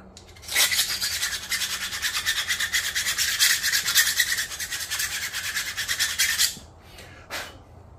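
Hand file rasping back and forth over a small part held in the hand, a steady run of quick short strokes that stops about six and a half seconds in, followed by a single short scrape.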